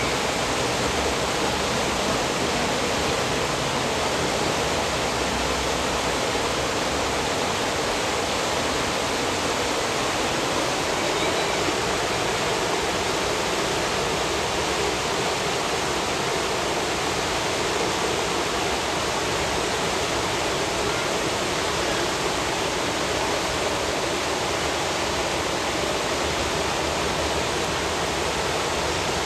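Steady, even rush of turbulent water.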